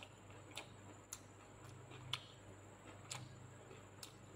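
Person chewing food with the mouth closed: a handful of sharp, irregular mouth clicks and smacks, about six in four seconds, over a faint steady hum.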